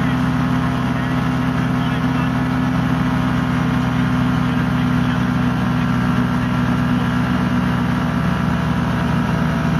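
Rotax 447 two-stroke engine of a Titan Tornado ultralight running steadily in flight, heard from inside the cockpit, its pitch and loudness unchanging.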